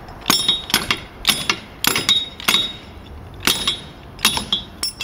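Metal tool striking a car wheel again and again: about nine sharp, ringing metallic clanks roughly half a second apart, with a short pause midway. It is an attempt to knock loose a wheel stuck on its hub, which the owner says is rusted on.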